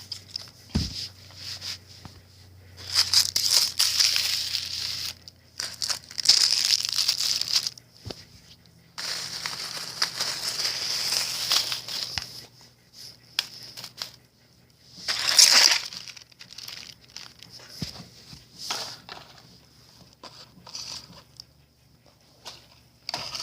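Fireworks packaging crinkling and rustling as the small fireworks are handled and packed away, in irregular bursts with quiet gaps and a few light knocks.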